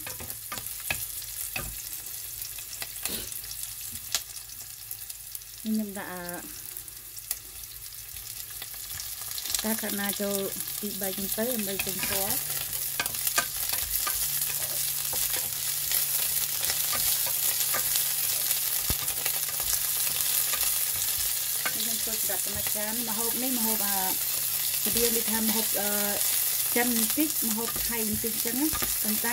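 Chopped onion, shiitake mushrooms and broccoli sizzling in hot oil in a nonstick pan while a wooden spatula stirs and scrapes them. The sizzle grows louder about a third of the way in and then stays steady.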